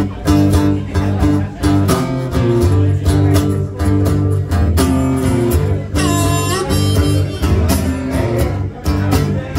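Instrumental intro played on a strummed acoustic guitar and a harmonica in a neck rack. The harmonica holds a long, bent note about six seconds in.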